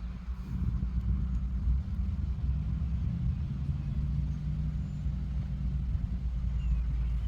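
A heavy truck's engine running steadily, a low rumble throughout: a truck bringing in a load of topsoil.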